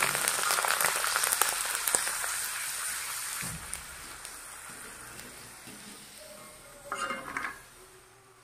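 Sun-dried potato chips sizzling and crackling in hot oil in a steel kadhai as a wire skimmer stirs them. The sizzle dies down steadily as the chips finish frying crisp, with a short scrape of the skimmer against the pan near the end.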